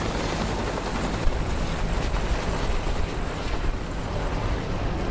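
Military helicopter flying low with its rotor beating in a fast, even rhythm, over the engine noise of military vehicles driving across a dirt field.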